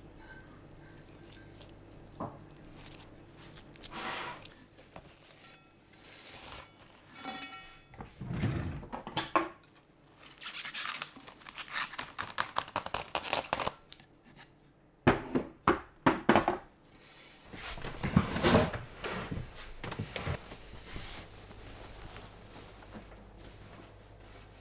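Kitchen handling sounds while making cheese-filled bread: a long stretch of crinkling or rustling near the middle, with sharp knocks of dishes and utensils just after it.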